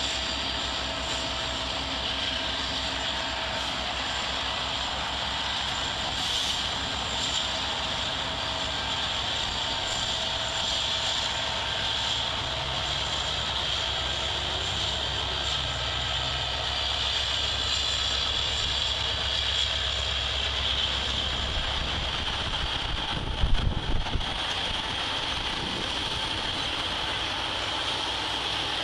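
Freight train rolling past: steady rumble of the cars on the rails, with a diesel locomotive's engine drone coming through about halfway in. The rumble dies away a few seconds before the end, with a few low thumps just before it fades.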